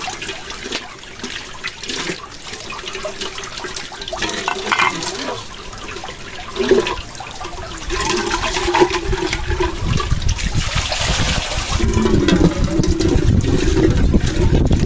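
Steady rush of heavy rain and gusting wind, growing louder about eight seconds in with a deep rumble as the wind picks up.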